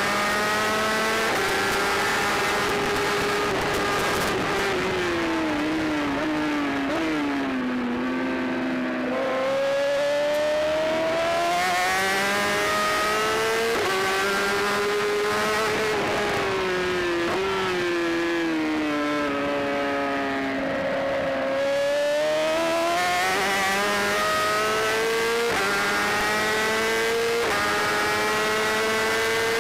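Onboard sound of a racing superbike's engine at high revs, the pitch climbing through the gears and dropping in a sudden step at each upshift. The pitch falls away twice as the bike brakes and downshifts for corners, then climbs again. Steady wind rush runs underneath.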